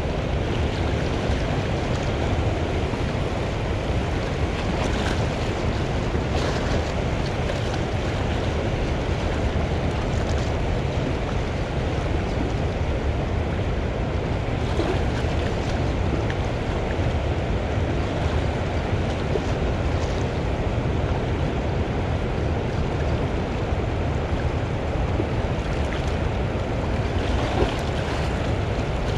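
Steady rush of turbulent river water pouring out of a dam's open flood gates, with wind buffeting the microphone.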